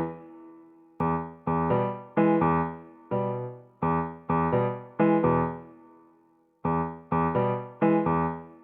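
Background music: a keyboard, like an electric piano, playing short struck chords that die away quickly, in phrases with brief pauses.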